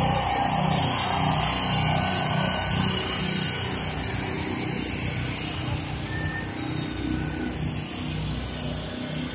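A small engine running steadily, with a bright hiss and low hum, getting gradually quieter from about three seconds in. A crowd murmurs underneath.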